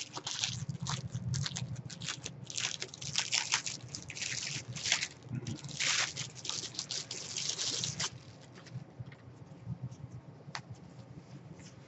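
Clear plastic bag and tissue-paper wrapping crinkling and rustling as a small package is unwrapped by hand. Dense crackling for about eight seconds, then only occasional soft rustles.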